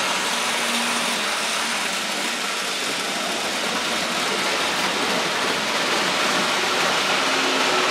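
Märklin H0 model trains rolling along metal M-track: a steady rushing noise of wheels on the rails, with faint motor hum now and then.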